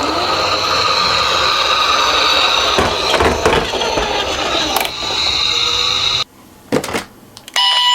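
Plastic toy minicars rolling down a slope, their small wheels giving a steady whirring rattle with a few knocks. The noise cuts out about six seconds in, and near the end a toy ambulance's electronic two-tone siren starts up.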